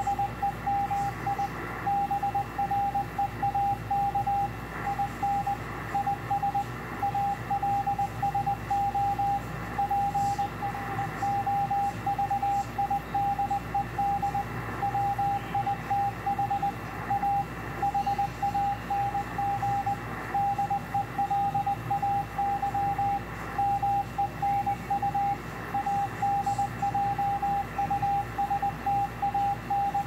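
Morse code (CW) from W1AW's code practice transmission on 3581.5 kHz, heard through a shortwave receiver: a single steady-pitched beep keyed on and off in quick dots and dashes, over a background of radio hiss.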